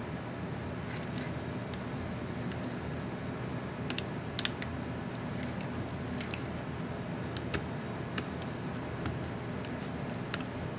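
Small plastic clicks and snaps from a laptop keycap and its retainer clips being worked on by hand, scattered and irregular, the sharpest about four and a half seconds in, over a steady low hum.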